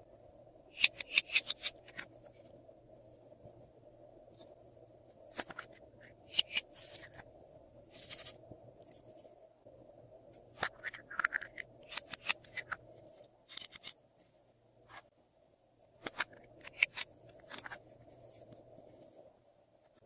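Glossy slime being pressed, stretched and mixed by hand, making irregular runs of sharp, sticky clicks and crackling pops over a faint steady hum.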